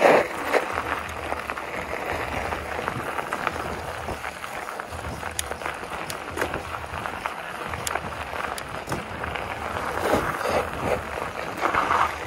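Mountain bike rolling fast downhill on a gravel trail: tyres crunching over the gravel and the bike rattling, with a low rumble of wind on the camera's microphone. It gets louder for a stretch about ten seconds in.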